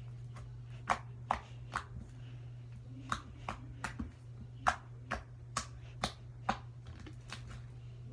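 Homemade pink-glue slime being squeezed and poked by hand, giving about a dozen sharp clicks and pops at irregular intervals. A steady low hum sits underneath.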